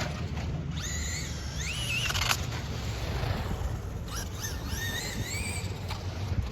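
Electric motor of a radio-controlled car whining, rising and falling in pitch in two spells as the car speeds up and slows, over a steady low rumble.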